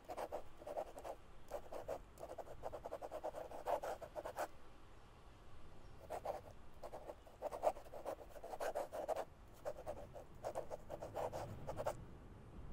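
Writing on paper: quick scratchy strokes in bursts, with a pause of about a second and a half around the middle, stopping shortly before the end.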